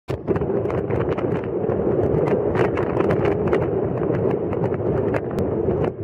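A vehicle driving along a paved road: a steady rumble of engine and road noise with wind on the microphone, and frequent light clicks and knocks through it.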